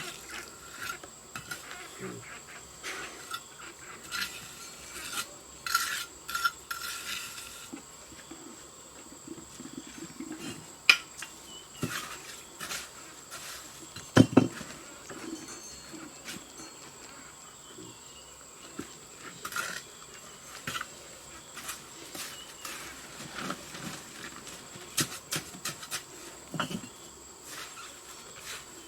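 Scattered clinks and knocks of hand work, with a steady high insect drone behind them.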